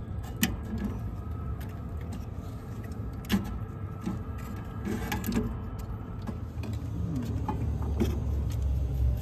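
Wire spade connectors being pulled off and pushed onto a furnace ignition control board: scattered small clicks and wire rattles, one sharper click about three seconds in, over a steady low rumble.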